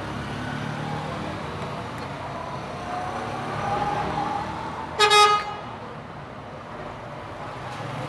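Road traffic running steadily in the background, with one short vehicle horn honk about five seconds in, the loudest sound here.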